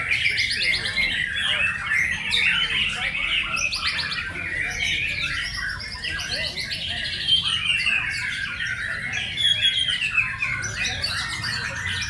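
Many caged white-rumped shamas singing at once: a dense, unbroken chorus of rapid trills and whistled phrases overlapping one another.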